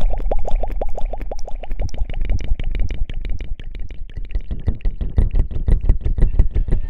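Fast, close-up rubbing and scratching strokes, about ten a second, in a steady rhythm.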